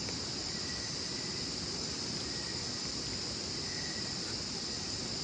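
Steady, high-pitched chorus of night-time rainforest insects such as crickets or katydids, with a fainter, lower trill that comes and goes every second or so.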